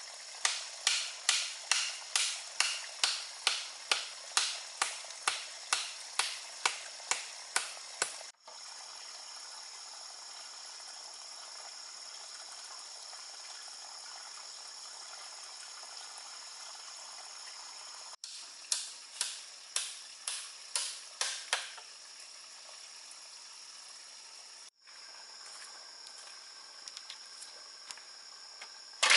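Repeated sharp tool strikes, about two a second, in two runs: for about eight seconds at the start and again for about three seconds in the middle. Under them runs the steady hiss of a stream.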